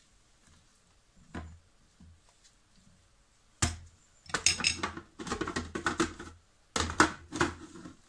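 A plastic food processor and a spatula being handled: a quiet stretch, then from about three and a half seconds in, a rapid clatter of plastic clicks and knocks.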